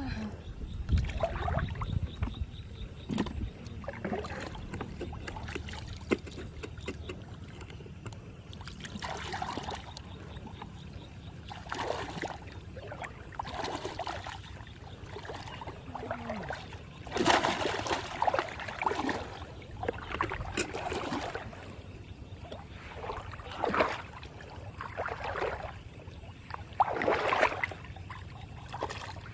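Water splashing and sloshing in irregular bursts, the way water sounds when someone wades and works through it by hand; the busiest splashing comes just past the middle and again near the end.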